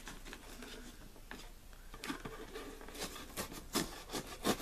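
A subscription box being opened and its contents handled: scattered taps, scrapes and rustles, coming thicker and louder in the second half.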